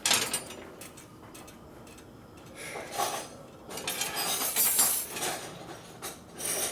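Metal hand tools and parts clinking and scraping against each other, with a few sharp clinks and a longer stretch of rattling scrapes near the middle, as work goes on fitting a hard oil line.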